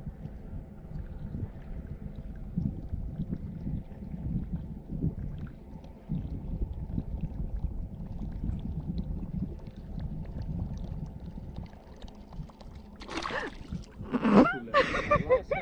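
Steady low rumble of wind and water around a small fishing boat, with a faint steady hum. About thirteen seconds in, a sudden splash as a fish strikes a surface lure, followed by a louder short burst.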